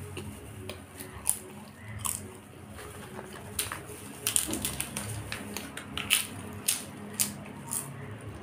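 Crisp papad crunching as it is broken by hand and chewed, in sharp, irregular crackles.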